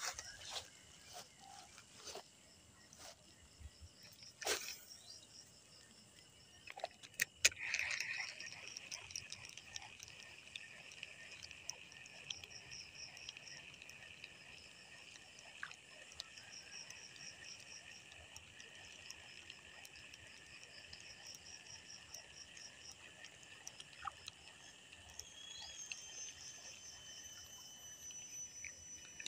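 A steady high chorus of frogs and insects from the waterside, with a rapid pulsing trill above it. It swells in about eight seconds in, after a few scattered clicks and knocks, and near the end a thin high whistling tone joins it.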